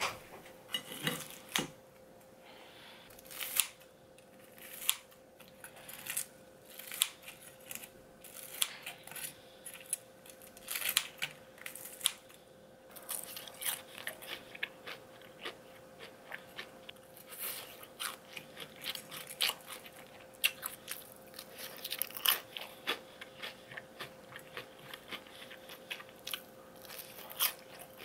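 Kitchen scissors cutting through the crisp fried batter of a giant sweet-and-sour pork cutlet: a run of irregular crunches and snips.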